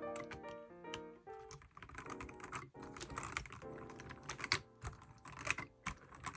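Typing on a Keychron K8 Pro mechanical keyboard with yellow switches and black translucent ABS OSA-profile keycaps: irregular clacking keystrokes.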